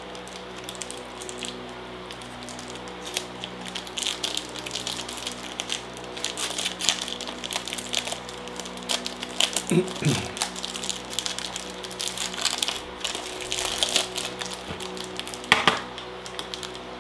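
Plastic wrapper of a Cadbury Crunchie bar crinkling and crackling in a quick irregular patter as it is peeled open by hand, with a sharp click near the end.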